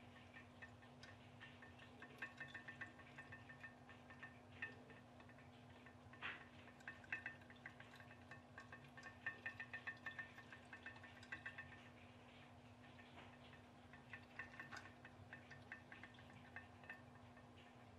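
Homemade pop-pop boat with a tea-light-heated coiled aluminium tube boiler, running faintly. It makes spells of rapid light ticking that come and go every few seconds.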